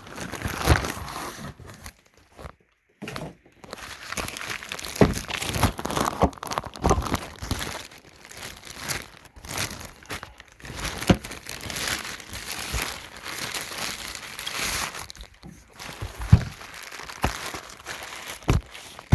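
Cardboard box and plastic packing crinkling, rustling and tearing as a boxed battery is worked out of it, with scattered knocks and bumps. There is a short pause about two seconds in.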